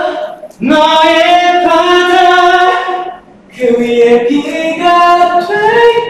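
A young man singing a slow ballad melody in long held notes, in two phrases with a short break about three seconds in.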